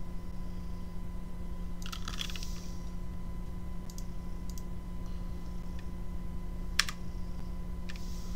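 Computer keyboard and mouse clicks: a short flurry of key presses about two seconds in, then a few single clicks, the sharpest one late on, over a steady low hum.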